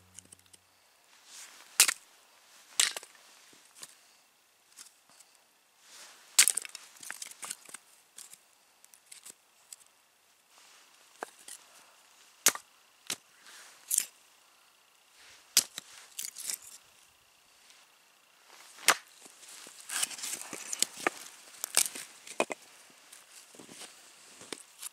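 Hatchet splitting small sticks of firewood into kindling: a series of sharp, irregularly spaced chops and cracks of wood. Between the blows come smaller knocks and rustling as the split pieces are handled.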